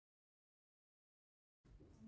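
Near silence, then faint low room noise begins near the end.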